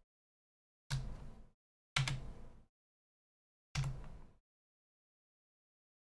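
Three separate computer keyboard keystrokes, about a second in, two seconds in and near four seconds in, each a sharp clack that fades quickly, from presses of the Tab key.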